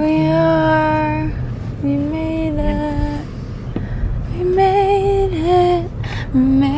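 A woman singing four long held notes without clear words, the third one wavering. The low rumble of a car interior runs underneath.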